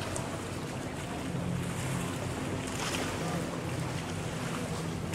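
Engine of an unmanned speedboat running steadily at speed as it circles, with water rushing and wind on the microphone. A brief rush of noise comes about three seconds in.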